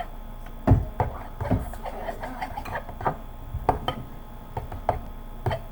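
A utensil clinking and knocking irregularly against a mixing bowl as slime made with detergent is stirred, with one louder knock near the start.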